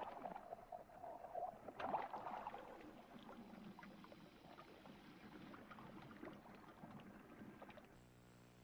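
Water poured from a cup splashing and gurgling into a tank. It is loudest at the start and again about two seconds in, then dies away. A faint steady hum comes in near the end.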